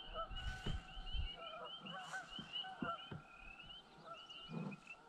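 Faint honking calls of waterfowl, a rapid string of short repeated notes, with a few soft knocks among them.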